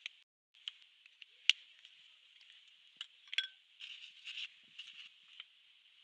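Felt-tip marker scratching on paper, broken by a few sharp clicks and taps, the loudest about a second and a half in, with short bursts of paper rustle in the second half as the sheet is handled.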